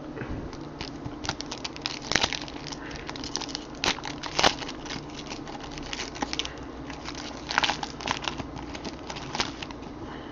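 Baseball trading cards being handled and flipped through one after another: irregular light clicks and snaps of card stock, with a few sharper snaps scattered through.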